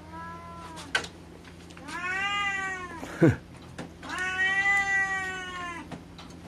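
Cat meowing three times: a short meow, then two long drawn-out ones, the pitch rising and falling in each. A single sharp knock comes between the second and third meows and is the loudest sound.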